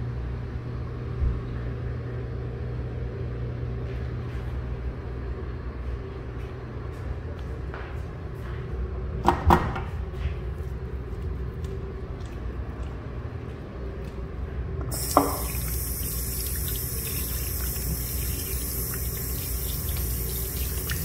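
A steady low hum runs throughout, with two sharp clacks about nine seconds in. About fifteen seconds in a brief tone is heard, then a sink faucet runs in a steady stream over hands being rinsed.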